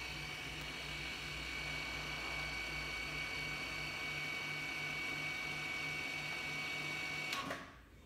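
Electric parking brake motor on the rear brake caliper of a 2015 Mercedes A180 running steadily, with a high whine over a low hum that pulses about twice a second. It is winding the caliper back to the fitting position for pad replacement, and it stops abruptly near the end.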